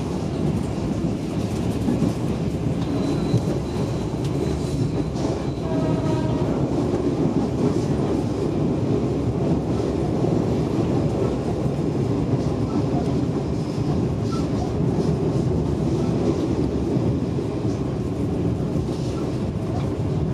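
Passenger train running at speed, heard from on board: a steady, even rumble of the wheels on the rails.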